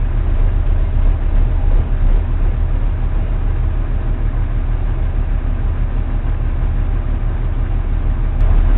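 Motor cruiser's engine running steadily as the boat moves slowly, a constant low rumble.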